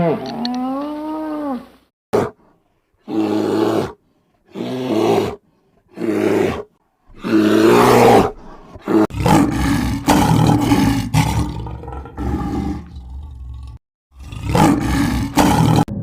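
A drawn-out mooing call trails off in the first two seconds. Then a big cat roars: several separate roars with short gaps, followed by longer, denser roaring and growling from about nine seconds in, which pauses briefly near the end and resumes.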